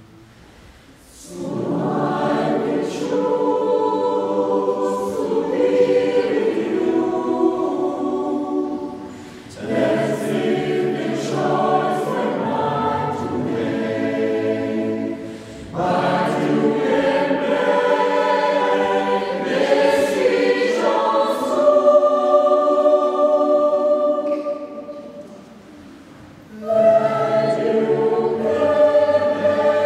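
Mixed choir of men's and women's voices singing sustained chords in several long phrases, with brief softer breaks between them.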